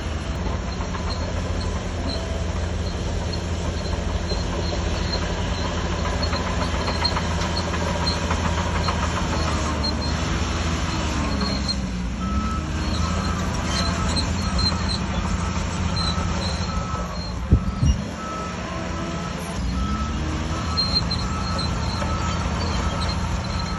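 Bulldozer's heavy diesel engine running steadily. Its note dips and rises again near the middle, and there is a single sharp clank about seventeen seconds in. A faint repeated beep sounds through the second half.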